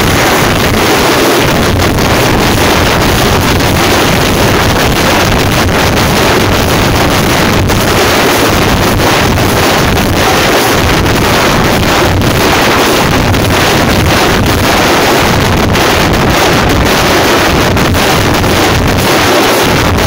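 Tamil thappu frame drums played by a drum troupe in dense, rapid strokes without let-up. The drumming is loud enough to overload the microphone into a constant distorted roar.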